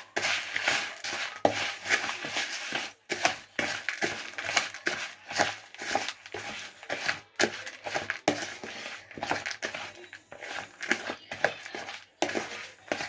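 A spoon mixing crushed dry instant noodles with sauces in a bowl: a steady run of irregular crunching and scraping strokes.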